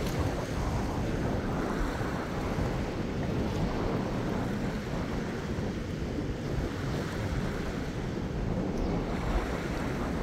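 Small ocean waves lapping and splashing against a seaweed-covered reef shelf, a steady rush of surf with no distinct breaks. Wind buffets the microphone, adding a low rumble underneath.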